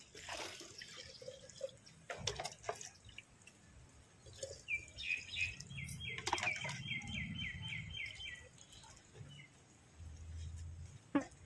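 Water poured and dripping from a small plastic mug into a clay pot, with a few sharp knocks of the mug and splashes as it is dipped into a plastic bucket. Midway, a small bird gives a quick run of repeated high chirps for a few seconds.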